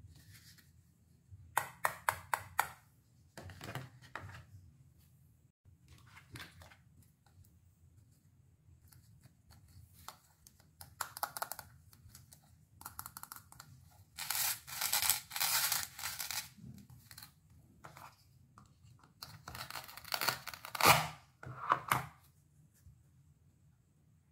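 Hook-and-loop (Velcro) discs on plastic toy fruit halves being torn apart and pressed back together: a crackly ripping sound in several short bursts, with a sharp hard-plastic click near the end.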